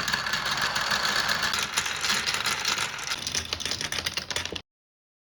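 Many glass marbles rolling and clattering down wooden marble-run slopes, a dense rattle of clicks that thins out a little and then cuts off suddenly near the end.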